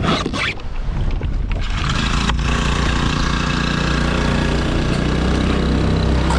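Paddle splashing, then a small four-stroke outboard motor running steadily from about two seconds in, pushing the kayak.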